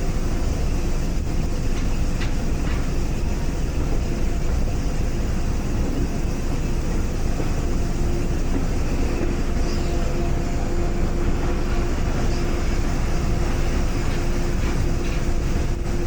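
Heritage railway train running along the track: a steady rumble of the train in motion, with a faint steady hum.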